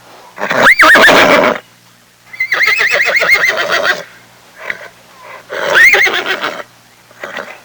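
Horse neighing three times, the middle call a long whinny with a fast quavering pitch, with shorter snorts and sounds between the calls.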